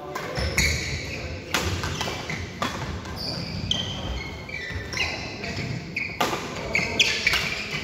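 Badminton rally: rackets strike the shuttlecock with sharp knocks, several times about a second apart, while court shoes squeak on the mat between shots.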